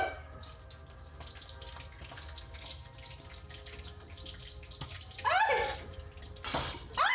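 Chicharon bulaklak (pork intestine) frying in hot oil in a steel wok, a steady crackling sizzle, with metal tongs turning the pieces. Two brief rising squeals, about five seconds in and at the very end, stand out as the loudest sounds.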